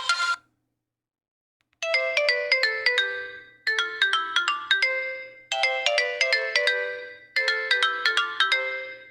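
Nokia 8000 4G default ringtone: a short phrase of quick pitched notes stepping down in pitch, repeated four times. The previous ringtone cuts off just after the start, and the new one begins after a pause of about a second and a half.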